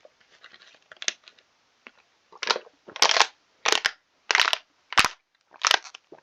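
Someone drinking water, with a plastic bottle crinkling and crackling in regular bursts about every half second. The bursts start about two and a half seconds in, after a few faint rustles and clicks.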